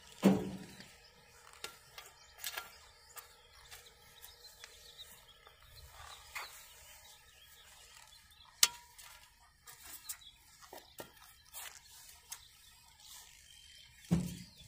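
Shovel digging into loose garden soil: scattered scrapes and knocks of the metal blade, with a few sharper strikes about a third of a second in, near the middle and near the end.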